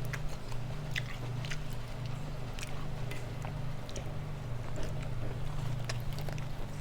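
A person chewing food close to the microphone, with scattered small wet clicks and crunches, over a steady low hum.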